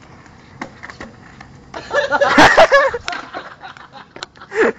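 Skateboard trick attempt on concrete pavement: two sharp clacks of the board about halfway through, under a short shout. Another brief vocal cry near the end.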